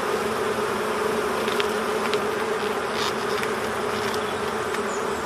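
Honeybee colony buzzing at an open hive: a steady, even hum with a few faint ticks over it.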